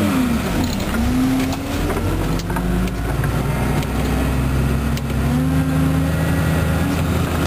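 Trail groomer's engine running under load. Its speed rises and falls over the first few seconds, then holds fairly steady.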